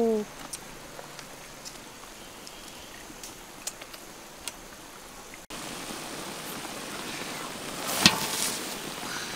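Cabbage leaves sizzling in a hot, steaming wok: a steady hiss, with a sharp clank of a metal utensil against the pan about eight seconds in. Before the hiss starts there are only a few light clicks of tongs.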